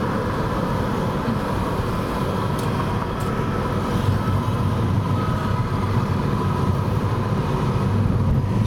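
Steady road and engine noise of a car driving along a city street, heard inside the cabin.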